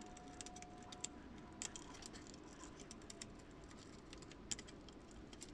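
Faint, irregular small clicks and ticks of a screwdriver working wires into the screw terminals of a metal-cased power supply.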